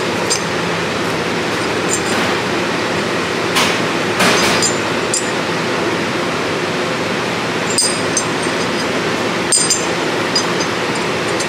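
Steel parts of a Spartan locker clinking against each other and the workbench as they are handled: about half a dozen sharp metallic clinks, with a brief rustle about four seconds in, over a steady background noise.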